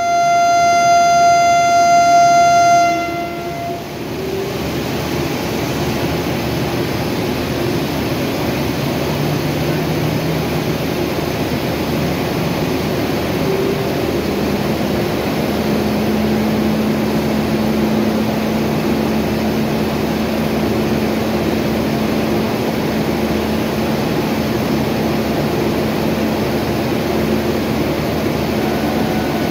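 Indian Railways WAP7 electric locomotive's horn sounding one long, high note for about three seconds as a departure signal. It is followed by the steady rumble and hiss of the waiting train and station, with a low steady hum coming in about halfway through.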